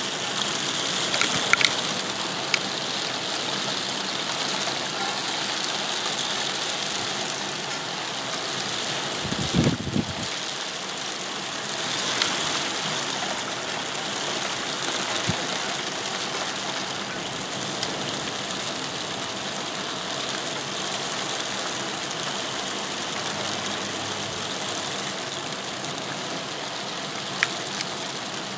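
Soft hail falling steadily on a flat roof and the garden, a dense, even pattering hiss. A few sharper ticks come near the start and near the end, and a brief low thump about ten seconds in.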